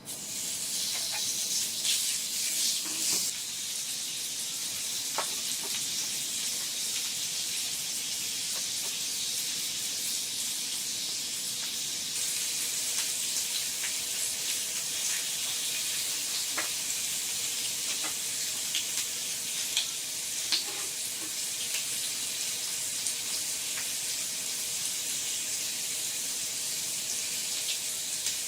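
Steady rain falling: a dense, even hiss dotted with the sharp ticks of individual drops. It begins suddenly at the start.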